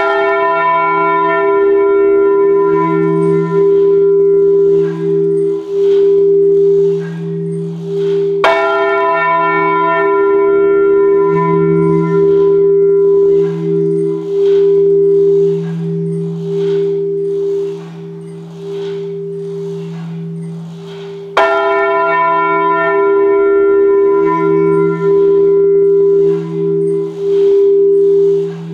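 Heavy bronze church bells (the 1949 Junker peal in e', g-sharp', b' and c-sharp') ringing together in full peal, heard from inside the belfry: a steady, deep hum with clapper strikes that keep repeating. Three strikes stand out much louder than the rest, each leaving a bright ring that fades.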